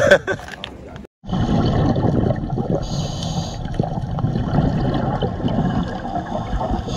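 Scuba divers' exhaled bubbles gurgling and rushing, recorded underwater. The sound cuts in suddenly after a brief silence about a second in and then runs on as a dense, even bubbling.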